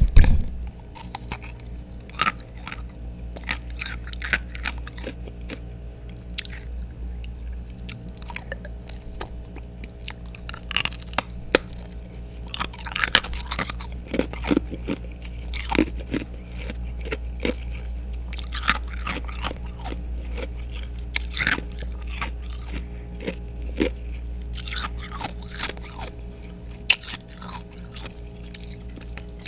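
A person biting and chewing freezer frost and thick ice chunks: irregular crisp crunches, many close together, with a steady low hum underneath.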